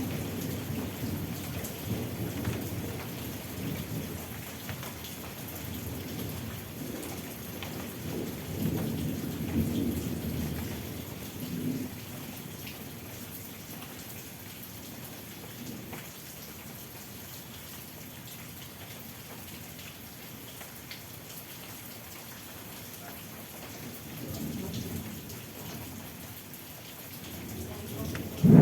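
Steady rain falling, with low rolls of thunder rumbling through the first half and again near the end.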